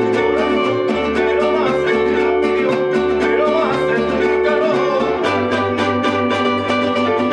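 Mariachi trio playing: strummed acoustic guitars over the plucked bass line of a guitarrón, the bass notes changing about once a second.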